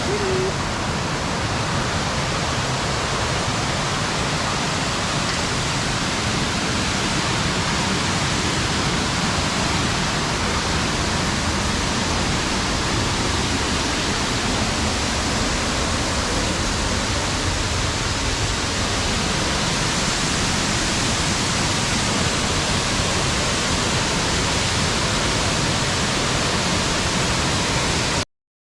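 Waterfall roaring steadily, a loud, even rush of falling water that cuts off suddenly near the end.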